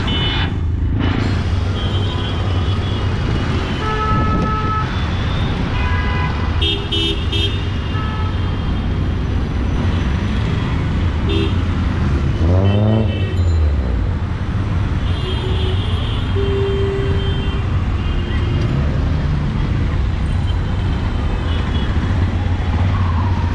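Busy street traffic in the rain: three-wheeled auto-rickshaw and car engines running steadily, with short horn toots scattered throughout. One engine revs up as it passes about halfway through.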